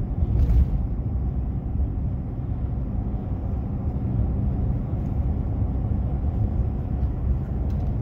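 Steady low rumble of tyre and engine noise from inside the cab of a vehicle driving on a paved road.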